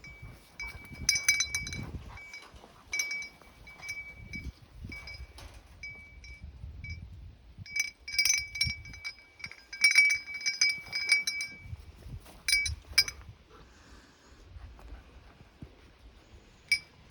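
Metal dog collar tags jingling and clinking as a dog moves and eats, giving a thin ringing note that keeps starting and stopping, with sharp clinks, busiest about eight to thirteen seconds in.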